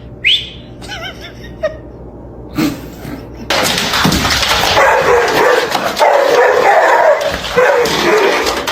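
A dog vocalising while being teased: a short rising yip near the start, then from about three and a half seconds in a long, loud stretch of continuous excited barking and noisy vocalising.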